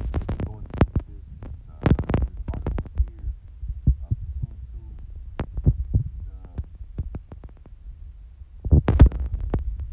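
Handling noise: irregular knocks and clicks over a low rumble, with a busier cluster of knocks near the end.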